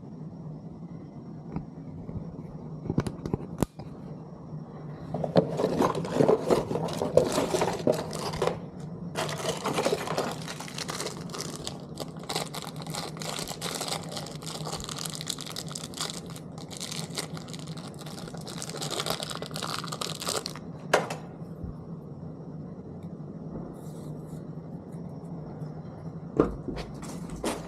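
Rustling, crinkling and scraping with scattered sharp clicks as a lever lock set is handled for fitting, busiest in the middle stretch, over a steady low hum.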